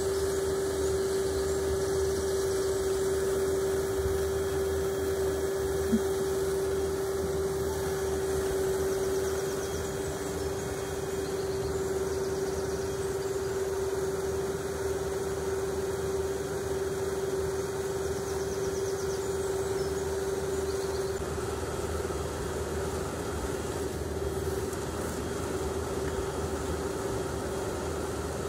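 Powerspout GE 400 micro-hydro turbine running: a steady hum with one constant mid-pitched whine over an even hiss. A single short tick comes about six seconds in.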